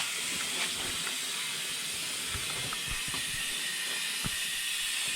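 Compressed air hissing steadily through an ATV tyre's valve stem, core removed, as the tyre is inflated to seat the bead, which has not yet popped on. A few faint knocks sound over the hiss.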